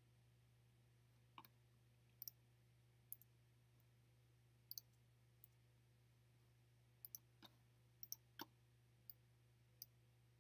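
Faint computer clicks while a slide is edited: about a dozen short, sharp clicks spread out at uneven gaps, several in quick pairs like double-clicks, over a low steady hum.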